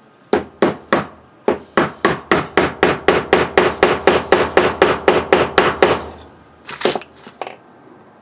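A small hammer tapping a steel punch that is driving the crankshaft bearing into a nitro RC engine's crankcase: a quick run of about two dozen light, even taps, settling into about five a second, then two more strikes near the end.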